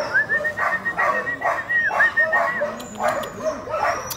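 Puppies yipping over and over, about three short yips a second, with a thin high whine held through the first half.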